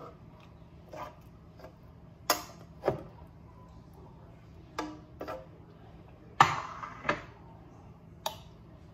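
A utensil tapping and scraping spinach filling off a frying pan into a glass baking dish: a series of sharp knocks and clinks at uneven intervals, the loudest about six and a half seconds in.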